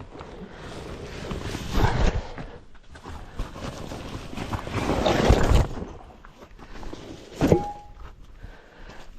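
Scuffing and scraping of someone climbing down a rock chimney, shoes and clothing rubbing against rock in uneven swells, with a sharp knock about seven and a half seconds in.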